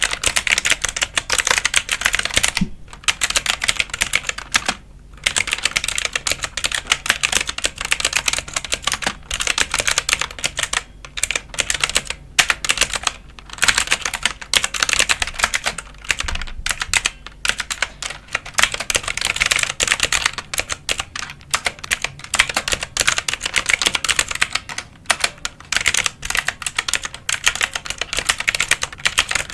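Continuous fast typing on a computer keyboard, a dense stream of key clicks with brief pauses about three and five seconds in.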